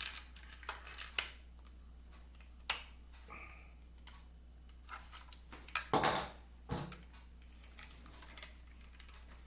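Hard plastic toy parts clicking and tapping as they are handled and pushed together, a few scattered clicks with a louder knock and scrape about six seconds in, over a low steady hum.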